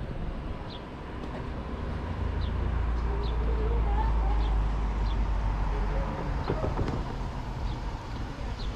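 A motor vehicle drives past, its deep engine and road rumble swelling to a peak and easing off after about six seconds. A bird chirps at a steady pace over it.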